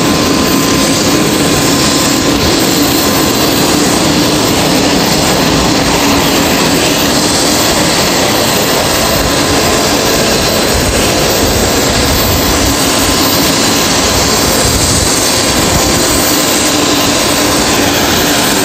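Turbine aircraft engines running at ground idle on the ramp as a single-engine turboprop taxis in: a loud, even roar with a steady whine.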